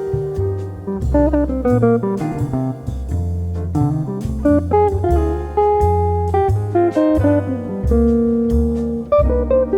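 Background jazz music with guitar, a walking bass and light drums.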